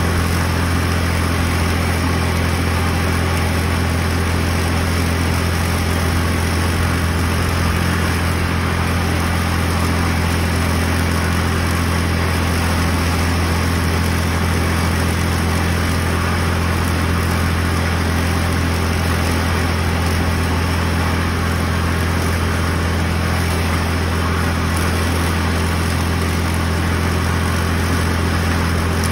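Tractor engine running steadily at constant speed, driving a belt-driven mower that cuts strawberry plants.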